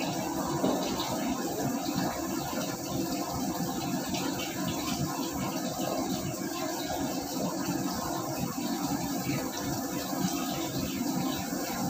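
Steady rushing noise of a commercial kitchen's exhaust hood, with soft sounds of food being mixed by hand in a stainless steel bowl.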